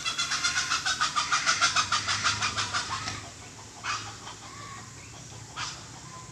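Fishing reel clicking in a fast, even run for about three seconds as a fish pulls line off the spool, the sign of a carp taking the bait; then a couple of single short clicks.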